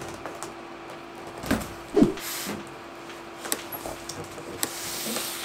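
Cardboard parcel box being put down and handled on a table: a few soft knocks, the loudest about two seconds in, then a brushing scrape near the end, over a steady low hum.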